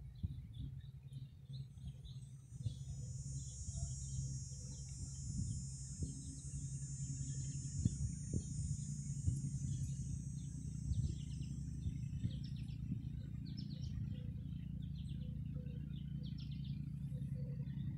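Backyard birds chirping in short calls, with a long high buzzing trill running for several seconds in the first half, over a steady low hum.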